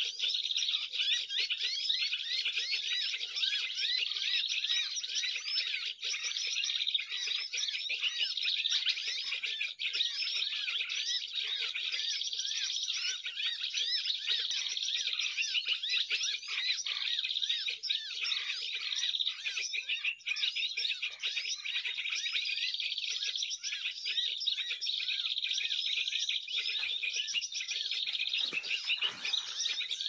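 Dense, continuous high-pitched chirping and twittering of many small birds, a flock of songbirds calling over one another without a break.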